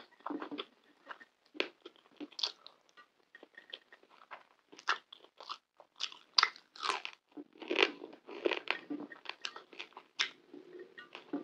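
Close-miked eating: biting and chewing crispy potato tahdig with saffron rice, a rapid run of short crackly crunches, loudest in the middle of the stretch.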